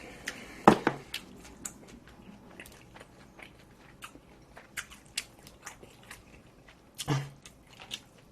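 A person chewing and biting food close to the microphone: many small wet mouth clicks, with two louder knocks, one about a second in and one near the end.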